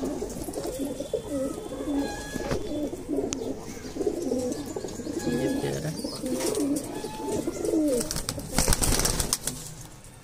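A flock of domestic pigeons cooing, many overlapping low coos throughout, with a brief rustling burst near the end.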